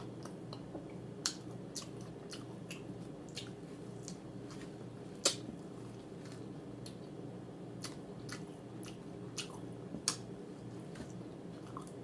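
Close-up chewing of fried chicken: lip smacking with scattered sharp, crunchy clicks, the loudest about five seconds in, over a steady low hum.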